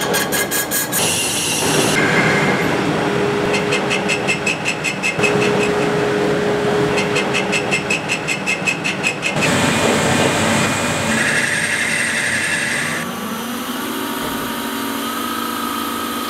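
CNC lathes turning metal workpieces: the machine runs with the tool cutting the spinning part, and in some stretches there is a rapid, even ticking of about five strokes a second. The sound changes abruptly a few times.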